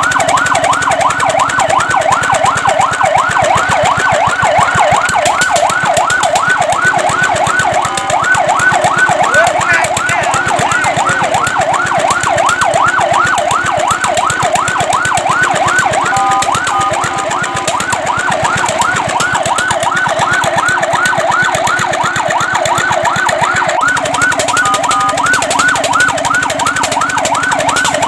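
Fire truck siren sounding a fast electronic yelp, rising sweeps about four a second, broken briefly three times by a short steady tone.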